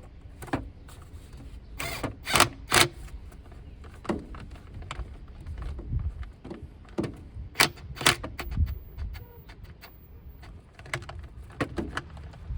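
Scattered sharp clicks and clanks of tools and parts being handled during reassembly in an engine bay, with the loudest knocks about two to three seconds in and again around eight seconds.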